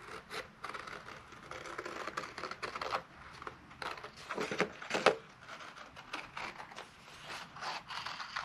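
White cardstock being handled and cut with scissors: irregular rubbing and scraping of the stiff sheet, with a couple of louder strokes around the middle, then scissor blades snipping into the paper near the end.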